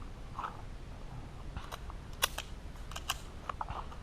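Scattered sharp metallic clicks and clacks of carbines and pistols being loaded and made ready, with magazines seated and actions cycled. The loudest click comes a little past two seconds in.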